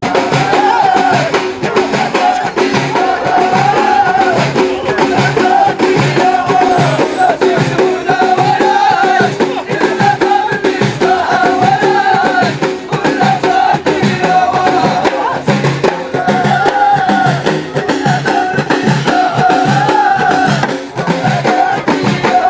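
Ahidous: a line of men sings a short chanted phrase together, over and over, over a steady beat of bendir frame drums.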